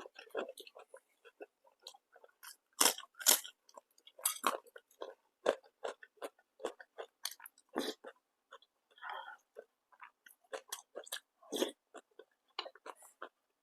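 A person chewing and biting food close to the microphone: a run of irregular mouth clicks and crunches, with a few louder bites.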